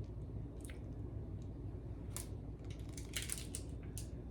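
A few faint, short crinkles and clicks from candy and its wrapper being handled, the loudest cluster about three seconds in, over a low steady background hum.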